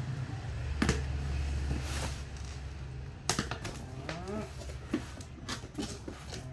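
A few sharp knocks and clatters from handling over a steady low hum, with a short rising call about four seconds in.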